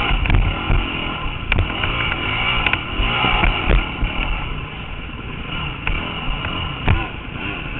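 Honda CRF250X dirt bike's four-stroke single-cylinder engine revving up and down over and over as it is ridden hard. Several sharp knocks from the bike going over rough ground cut through it.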